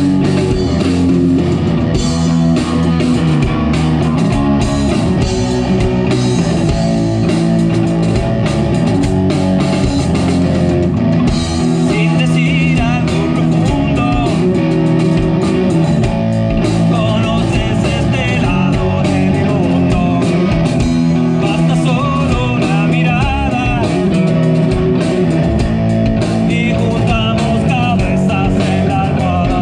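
A live band playing rock music through stage loudspeakers, led by amplified electric guitars, loud and steady throughout.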